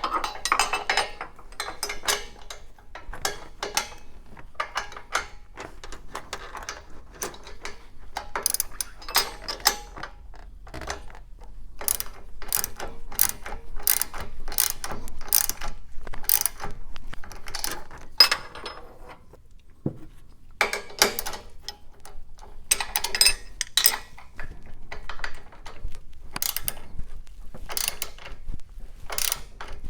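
Ratchet wrench with a 9/16 socket clicking in runs of short strokes, with brief pauses, as the exhaust pipe-to-manifold clamp bolts are tightened evenly.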